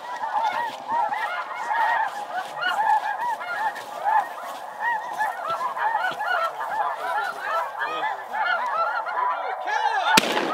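A large flock of snow geese calling, a dense chorus of overlapping high yelps and cackles. About ten seconds in, a single shotgun shot cracks out over the calling.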